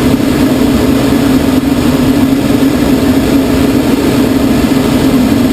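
Steady loud drone of the tow plane's propeller engine ahead, heard from inside the cockpit of a glider on aerotow, mixed with rushing airflow.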